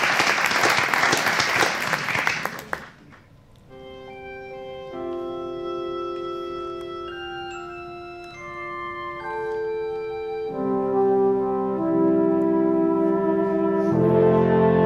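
Applause for about the first three seconds, then slow instrumental music begins: held chords that change every second or two and grow louder and fuller near the end.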